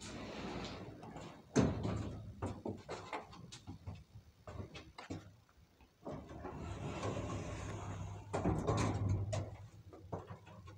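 Elevator's automatic sliding doors opening, with a sharp knock about a second and a half in, then a run of small clicks. Near the end the doors close with a steady hum and a louder rush of motion.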